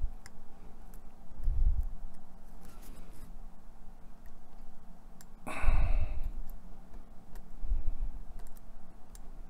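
Craft knife blade picking and scratching at the edge of a paper backing sheet to lift it, with small faint clicks, a few soft knocks on the cutting mat and a louder brief rustle about halfway through.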